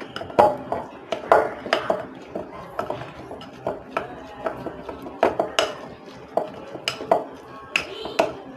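A metal spoon stirring a thick spice paste in a cut-glass bowl: irregular clinks and scrapes of the spoon against the glass, about one or two a second.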